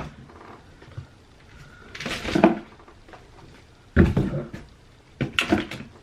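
Plastic hand-soap bottles being put back into a box, knocking and rustling in three bursts, about two, four and five and a half seconds in.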